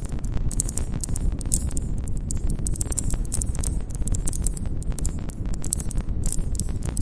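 Wood campfire crackling, with many sharp pops and snaps over a low, steady rumble of the flames. Crickets chirp in a high band behind it.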